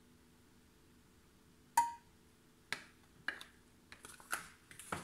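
Kitchen utensils and containers being handled on a worktop: a sharp clink with a short ring about two seconds in, then a few lighter clicks and knocks.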